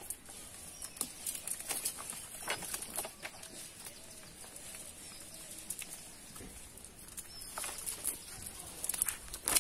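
A cast net and freshly caught fish being handled on wet mud: scattered soft taps and rustles as the fish are picked up and dropped into a metal bucket. Birds call in the background.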